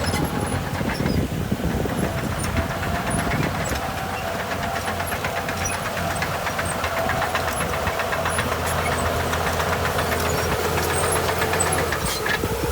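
Diesel engines of heavy earthmoving machinery running steadily, a bulldozer working beside a dump truck, with a constant drone and scattered metallic clicks and rattles.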